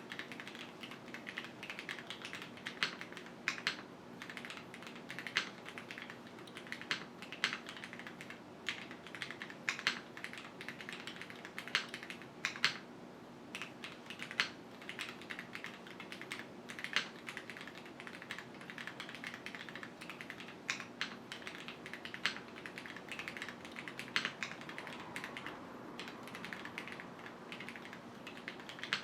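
Continuous fast typing on a QwertyKeys Neo 65 mechanical keyboard with Cherry HyperGlide Black linear switches, an aluminium plate and no foam. It makes a dense patter of key clicks, some strokes louder than others, with a brief pause just under halfway.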